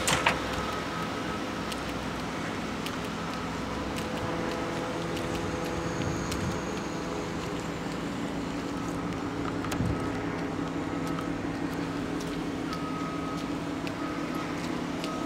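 Steady hum of a running motor-vehicle engine, with a short knock at the very start.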